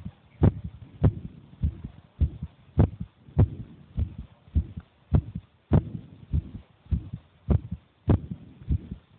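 A ten-year-old child's heartbeat: regular thumping beats, a little under two a second, each strong thump trailed by a weaker one.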